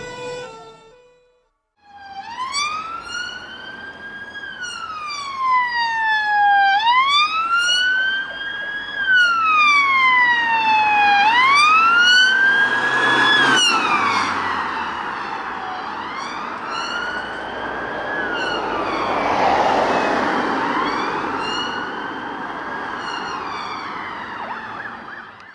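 Police car siren on a 2019 Ford Mondeo dog support vehicle answering an emergency call, sounding a slow wail that rises and falls in smooth sweeps about every four to five seconds. Vehicle noise swells under it as the car passes, loudest about halfway through.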